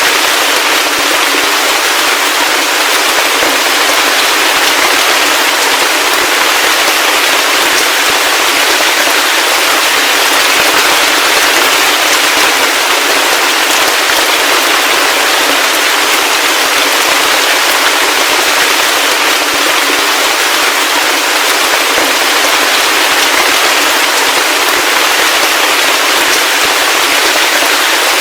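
Heavy rain falling steadily: a dense, even hiss of drops, bright and thin, with no low rumble or thunder.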